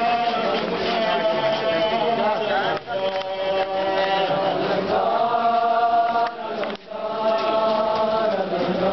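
A group of voices chanting a nauha, a Shia mourning lament, together in long held notes, the phrases broken by short pauses about three seconds and six and a half seconds in.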